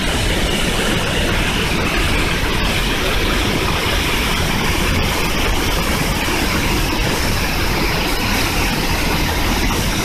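Large waterfall seen at close range, its falling water making a loud, steady rushing noise with a heavy low rumble.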